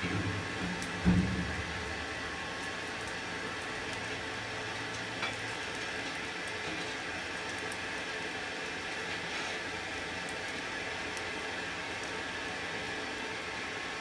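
Coke and charcoal fire in a brake drum forge burning with a steady hiss and scattered faint crackles. A single dull knock comes about a second in.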